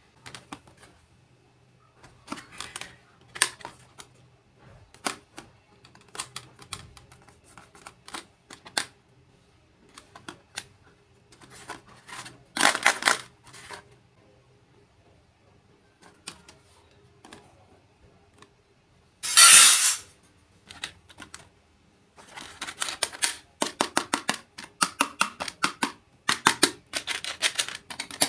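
Light clicks and taps of small miniature toy kitchen pieces being handled and set down, with a few short scraping rustles and a quick run of clicks near the end.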